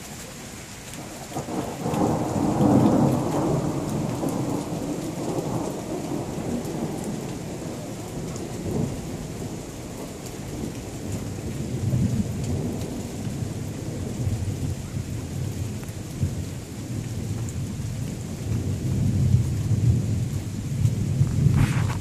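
Thunder rumbling over steady rain. A long rumble swells about two seconds in and slowly dies away, and more rumbles roll in later, the loudest near the end.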